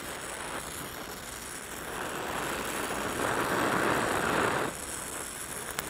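Oxy-acetylene welding torch with a #3 tip burning a neutral flame, hissing steadily as it melts an open-root steel butt joint and filler rod. The hiss swells for a couple of seconds in the middle, then drops back suddenly.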